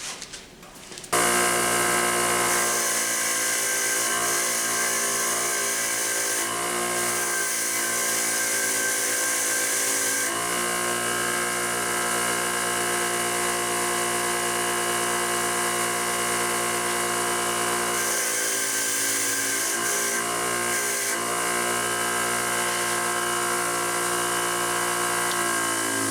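Electric power tool motor running steadily, a loud whine of many steady tones that starts suddenly about a second in and shifts a little in load a few times.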